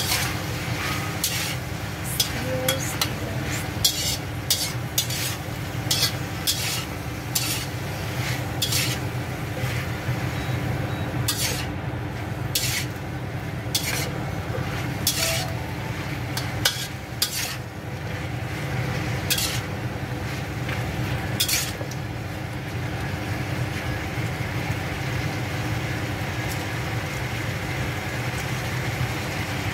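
Cucumber, shrimp and tomato stir-frying: a black slotted spatula scraping and knocking against a speckled nonstick pan over a steady sizzle. The knocks come often at first and stop about twenty seconds in, leaving the sizzle and a low hum.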